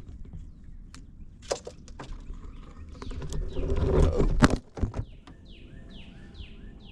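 Knocks, clatter and rumbling handling noise from a camera being knocked over, loudest about four seconds in. Near the end a bird calls a run of about five quick falling notes.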